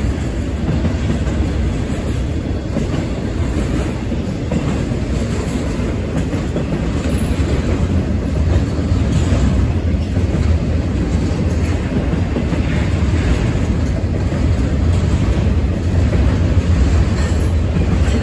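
CSX intermodal freight train's cars, loaded with double-stack containers and trailers, rolling past: steel wheels running on the rails in a steady low noise that holds throughout.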